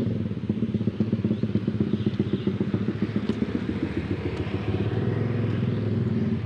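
An engine idling close by: a steady, even, rapid chugging that holds the same pace throughout.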